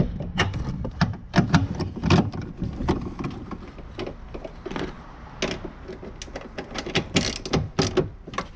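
Irregular clicks, knocks and rattles of hand tools and plastic trim being handled while a car taillight and its fasteners are refitted, with a short rattle about seven seconds in.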